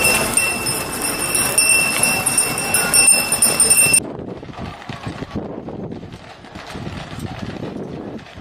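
Sleigh bells on a horse-drawn sleigh jingling with a steady ringing, cutting off abruptly about four seconds in. Then quieter, irregular hoof clatter of a team of Clydesdale draught horses walking in harness on pavement.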